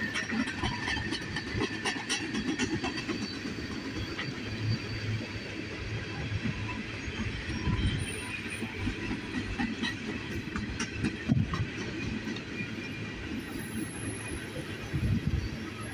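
Freight train of tank cars rolling past overhead on an elevated track: a steady rumble of steel wheels on rail, with scattered clicks from the wheels.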